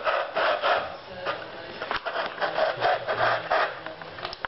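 A dog eating fast from a bowl: quick, irregular chomping and smacking, a few bites a second.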